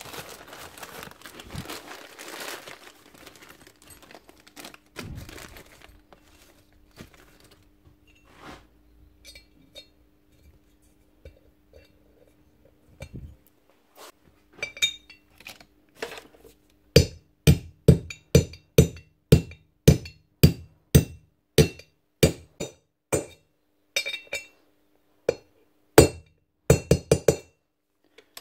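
A plastic service-kit bag crinkling as it is opened, then small parts clicking now and then on the workbench. About halfway through, a long run of sharp metallic knocks starts, roughly two a second.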